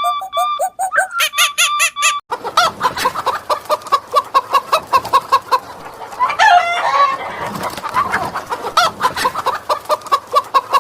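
Birds calling with quick, repeated short calls. About two seconds in, a clean run of evenly repeated notes cuts over to a noisier recording of rapid calls, with one longer call that rises and falls near the middle.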